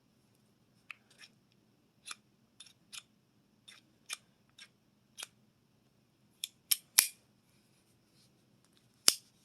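Sharp metallic clicks from a 32-20 Eibar revolver as its cylinder is handled and turned. There are about fifteen clicks at uneven intervals, with two louder ones near the end.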